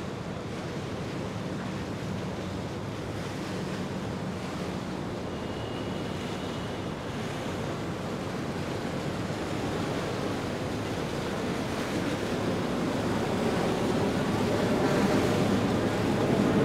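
Wind and water noise with a low, steady boat-engine hum, growing louder over the second half.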